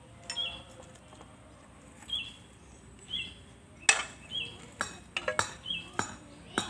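Sharp metallic clinks of tools and parts being handled, several in quick succession in the second half, the loudest about four seconds in. Behind them a bird repeats a short high chirp about once a second.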